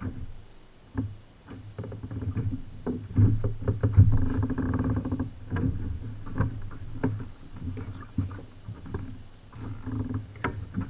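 Knocks and bumps against the hull of a Native Watercraft Slayer Propel 10 fishing kayak, a string of sharp taps and thuds over a low rumble as a bass is handled aboard, busiest about four seconds in.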